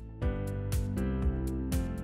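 Background music with a steady beat of about two beats a second over sustained chords.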